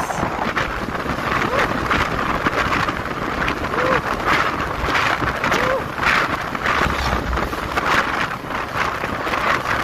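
Wind rushing over the microphone of a moving motorcycle, steady and loud, with engine and road noise underneath.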